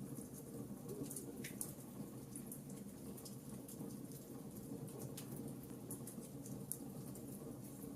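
Fireplace fire crackling: irregular small sharp pops and snaps, a few each second, over a steady low rumble of the flames.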